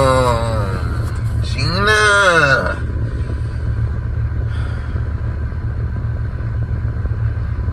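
A man's two drawn-out, wordless exclamations of admiration, each rising then falling in pitch, in the first three seconds. Under them and after them is the steady low hum of the car he sits in.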